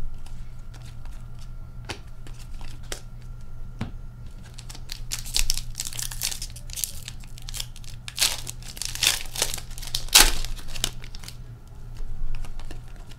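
Wrappers of Upper Deck Series 1 retail hockey card packs crinkling and tearing as they are opened by hand, in scattered bursts that are loudest about ten seconds in. A low steady hum runs underneath.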